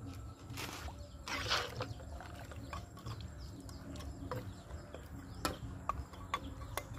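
Metal ladle stirring and scraping in a wok of pork simmering in sauce, with two short scrapes in the first two seconds and scattered light clinks after.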